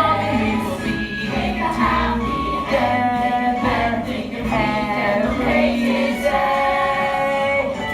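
A cast ensemble singing a musical-theatre number together in chorus, over a low instrumental accompaniment.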